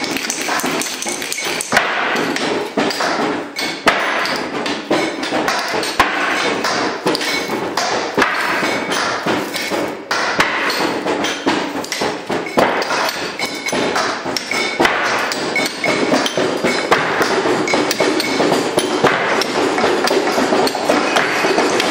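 Improvised percussion: a dense, unbroken run of tapping, knocking and clattering on assorted objects, with metallic pings. Near the end a toy glockenspiel is struck with mallets.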